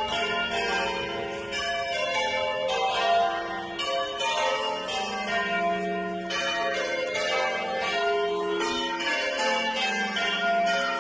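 Church bells being rung in changes, one bell struck after another with their tones ringing on and overlapping.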